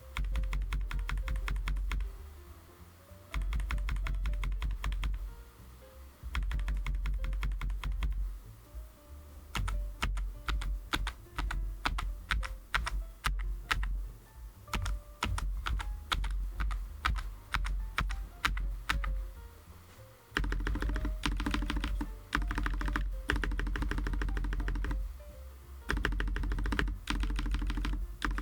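Typing on a Keychron J9 low-profile mechanical keyboard with Milk POM switches: fast runs of keystrokes lasting a few seconds each, broken by short pauses, over background music.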